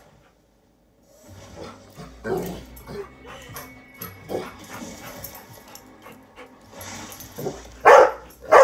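Golden retriever giving short, excited barks and yips, the two loudest near the end.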